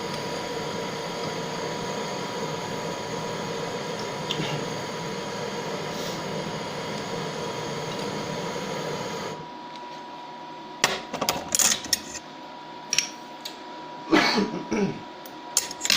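A steady hiss runs while the solder is being melted and cuts off suddenly about nine seconds in. After that come a series of sharp metal clinks and scrapes from a tool working over the molten solder, skimming off the heavy dross.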